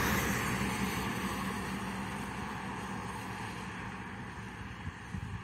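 A pickup truck driving away after passing close by; its engine and tyre noise fades steadily.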